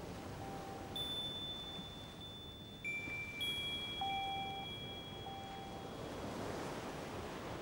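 High ringing chime tones: three struck notes, about one, three and three and a half seconds in, each ringing on for several seconds, with a short lower tone sounding a few times, over a faint hiss.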